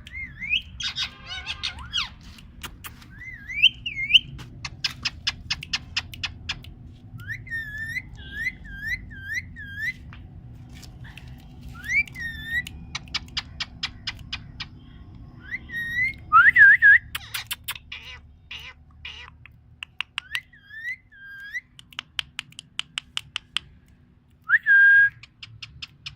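Ringneck parrot calling: repeated short rising whistles, runs of rapid clicks, and two loud squawks, one about two-thirds of the way through and one near the end.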